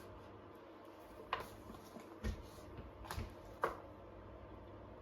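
Small clicks and taps of tools and parts being handled on an electronics repair bench while a capacitor is fitted to a circuit board: a few scattered sharp clicks and one duller knock over a faint steady background hiss.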